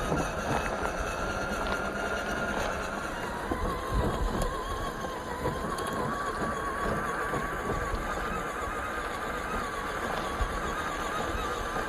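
Whine of a 1:10 scale RC crawler's stock electric motor and drivetrain, one thin wavering tone that dips briefly in pitch about three seconds in and then climbs again, over irregular rustling and small clicks.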